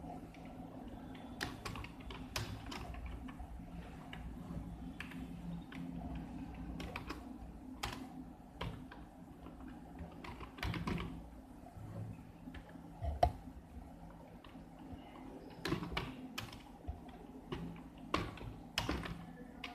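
Computer keyboard being typed on: irregular runs of key clicks with short pauses between words, over a low steady hum.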